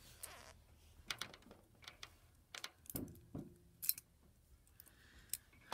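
A bunch of keys being handled, giving scattered light metallic clicks and clinks.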